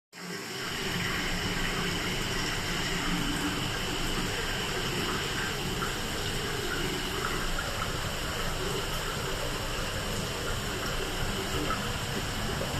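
Steady rushing of running water, fading in at the start and then holding an even level.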